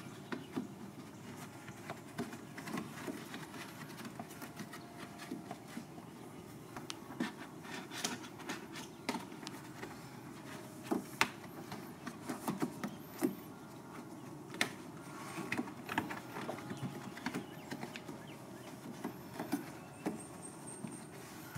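Irregular light clicks, taps and rustling as the trunk's side trim lining is pressed and tucked back into place by hand and with a plastic trim tool.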